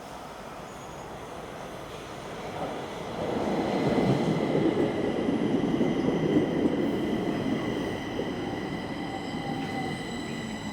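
Subway train running on the track, heard from outside: a rumble that swells about three seconds in and eases off toward the end, with a steady high-pitched whine above it.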